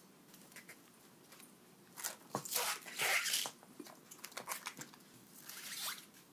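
Rustling and scraping noises from handling food and kitchen things, loudest about two to three and a half seconds in and again shortly before the end.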